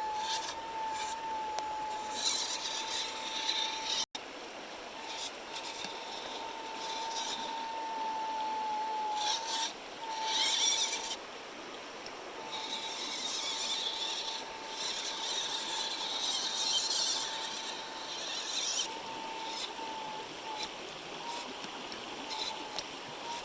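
1/16 WPL C-14 RC crawler driving on its 130-size brushed motor, a steady high-pitched motor and gear whine that breaks off and comes back several times. Irregular bursts of gritty scraping hiss run alongside it, and the sound cuts out for an instant about four seconds in.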